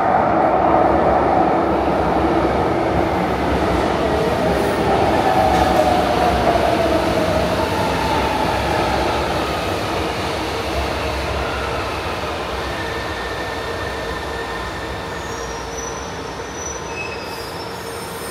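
Electric metro train running through the station, loudest at first with a humming drone and wheel-on-rail noise, then fading slowly. A few brief high-pitched wheel squeals come near the end.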